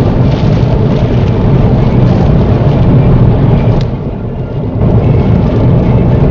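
Steady in-car road noise at motorway speed on a wet road: tyres on standing water and engine hum, dipping briefly about four seconds in.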